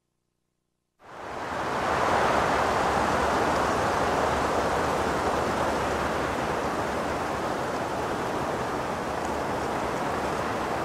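Steady rushing noise of sea surf, fading in about a second in after a moment of silence.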